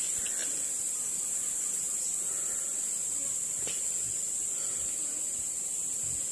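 A steady, high-pitched drone of insects, an unbroken chorus that holds at one level throughout.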